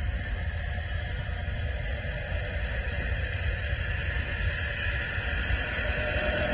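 Small live diesel engine of an HGm 4/4 garden-railway model locomotive running steadily, its sound mostly low, growing slowly louder toward the end.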